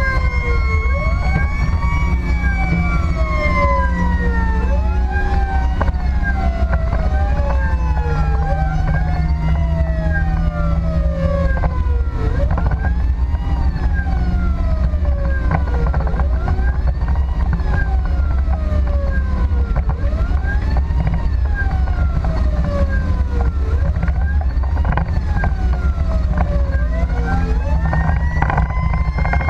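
Emergency vehicle siren wailing, its pitch sweeping up and down in cycles of a second or two. Under it is a steady low engine and road rumble from inside the moving vehicle.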